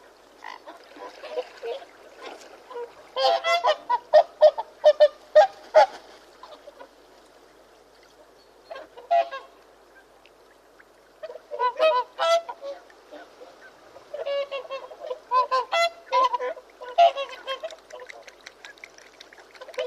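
Birds calling in clusters of loud, rapid, repeated calls. There is a dense run a few seconds in and more bouts through the second half, with quieter gaps between.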